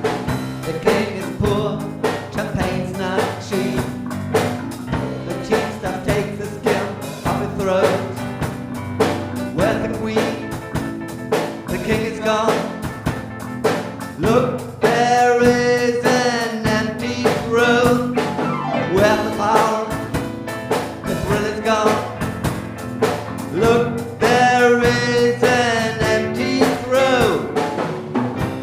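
Instrumental rock ballad passage: a steady drum beat under fretless bass and keyboards. A lead melody that glides between notes enters about halfway through and again near the end.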